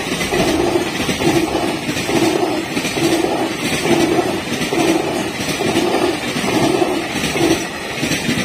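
Freight train rolling through a level crossing, a steady rumble and hiss of passing wagons, with the crossing warning bell ringing about one and a half times a second.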